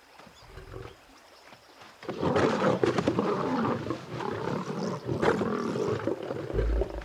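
Lions snarling in a confrontation, breaking out suddenly about two seconds in and running loud and rough after a quiet start.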